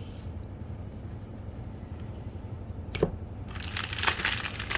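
Trading-card pack wrapper crinkling as it is handled and opened, starting about three and a half seconds in, after a single click about three seconds in.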